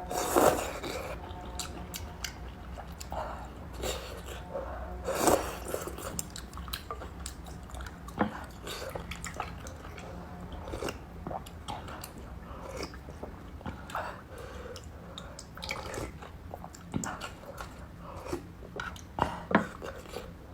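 Close-miked eating of rice noodles: chewing and mouth smacks in a run of short wet clicks. Two louder slurping swells come, one near the start and one about five seconds in.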